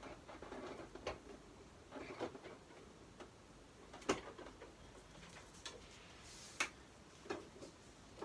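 Adjustment dials of a Singer adjustable dress form clicking as they are turned, with handling knocks against the form. The clicks come at irregular intervals, faint, with the sharpest one about four seconds in.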